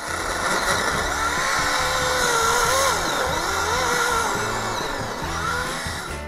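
Greenworks 40V brushless cordless electric chainsaw cutting through a log, its motor whine wavering in pitch as it loads in the wood, over background music.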